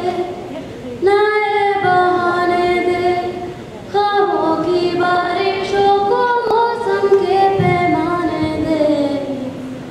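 A female voice singing a slow melody in long held, gliding notes, with new phrases starting about one second and about four seconds in.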